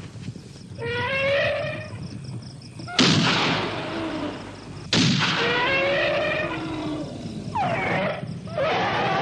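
A wounded elephant trumpeting and screaming in long pitched calls, some sliding up or down, broken by two loud rifle shots about two seconds apart: an elephant being shot during a hunt.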